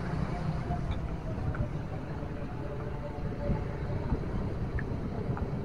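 Outdoor street ambience: a steady low rumble of road traffic, with a few faint scattered sounds over it.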